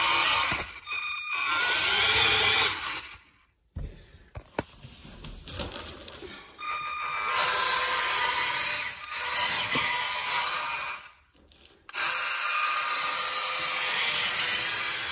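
Small electric motor and plastic gearbox of a cheap 4x4 RC truck whining as it drives, its tyres rolling on tile. The whine drops away twice, about three and a half seconds in and again near eleven seconds, then comes back suddenly.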